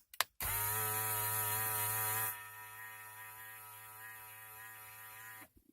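A steady buzzing tone from a 2-DIN car stereo's speakers. It drops sharply in level a little past two seconds in, then holds until it cuts off suddenly near the end.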